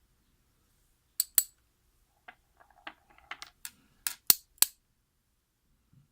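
Sharp metallic clicks and clinks of small lock parts being handled and set down while a lock cylinder is taken apart: two close strikes about a second in, a run of softer ticks, then three louder clinks about four seconds in.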